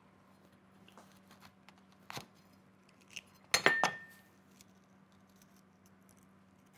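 A steel cleaver on a wooden cutting board: a knock about two seconds in, then a louder clatter with a short metallic ring about halfway through as the cleaver is set down. Faint handling sounds of long green peppers being split open by hand.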